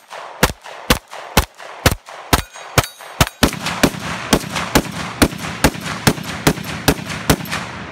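A string of 9 mm pistol shots from a Glock 19-pattern pistol built on a homemade oak frame, fired rapidly at about two shots a second, around seventeen in all, stopping just before the end.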